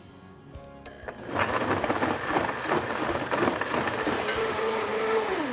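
Countertop blender starting up about a second in and running hard, puréeing dates, tomato paste and vinegar into a thick sauce. Near the end its motor note drops as it switches off.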